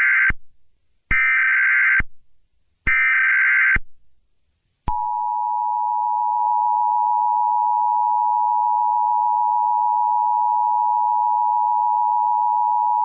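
Emergency Alert System header: short bursts of rapid data tones, each about a second long with gaps between, then, about five seconds in, the two-tone attention signal (853 and 960 Hz) held steadily for about eight seconds. This is the standard preamble that marks the start of an emergency alert broadcast.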